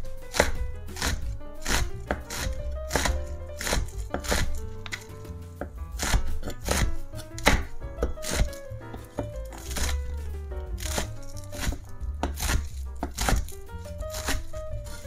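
Kitchen knife chopping food on a cutting board, about two cuts a second at an uneven pace, over soft background music.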